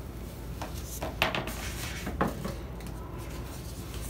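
Foam model-plane tail piece being lifted out of styrofoam packaging and set down, with light rubbing and a few short knocks, the sharpest about a second in and again about two seconds in.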